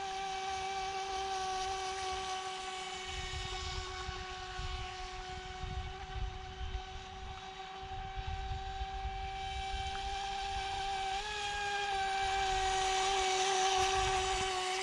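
Electric 3S RC speedboat's motor whining steadily at full throttle, a single held pitch with a slight step about two-thirds of the way through, growing louder near the end as the boat comes closer.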